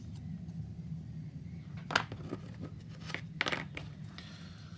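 Light clicks and taps of hard plastic model-kit parts, the elevators and tailplane of a 1/32 Mosquito, as they are handled and offered up to each other. There is one sharp click about two seconds in and a quick cluster of clicks about a second later, over a steady low hum.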